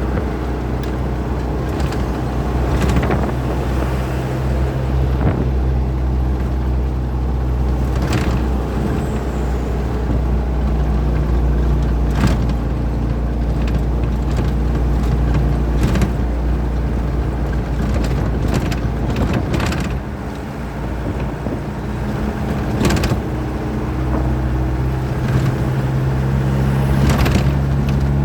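Truck engine running steadily while driving, with repeated short knocks and rattles. The sound dips briefly about twenty seconds in, then the engine note grows stronger near the end.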